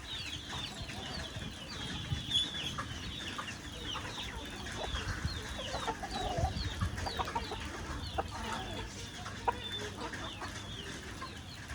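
Chickens calling and clucking, with many short high calls overlapping throughout and a few lower calls about six seconds in, over a steady background noise.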